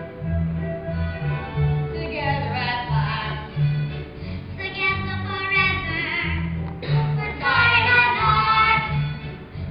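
A child singing a show-tune melody in phrases over a musical accompaniment with a bouncing, evenly pulsing bass line.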